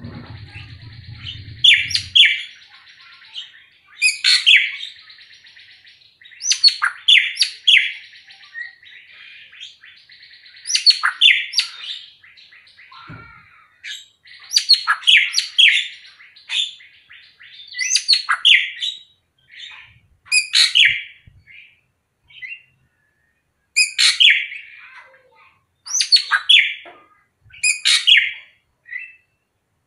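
Greater racket-tailed drongo calling over and over: short bursts of sharp, varied whistled and chattering notes every couple of seconds, with harsh rasping phrases in between during the first half.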